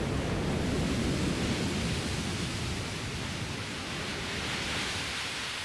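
Steady rushing noise of a storm, with a low rumble underneath, easing slightly towards the end.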